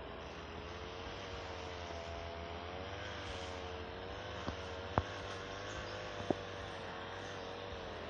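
A distant motor humming steadily, its pitch slowly wavering up and down, over a background hiss. Three sharp knocks in the second half, the loudest just past the middle.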